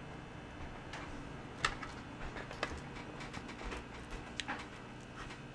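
Scattered light clicks and taps of skirted bass jigs being handled and set down in a clear plastic compartment tackle tray, over a faint steady hum.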